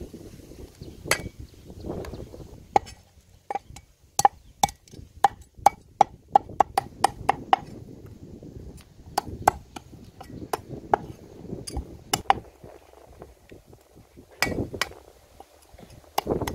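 A knife striking hard repeatedly as fish are cleaned and cut: sharp chops with a slight ring, a quick run of about two to three a second in the middle, with scattered single strikes before and after.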